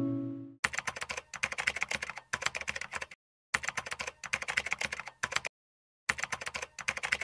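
An acoustic guitar chord rings out and dies away about half a second in. Then a keyboard typing sound effect follows: three runs of rapid key clicks with short silent gaps between them, as text types out on screen.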